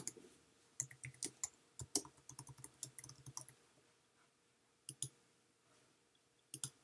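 Faint typing on a computer keyboard: a quick run of keystrokes lasting about three seconds, followed by two separate double clicks of a mouse, one about five seconds in and one near the end.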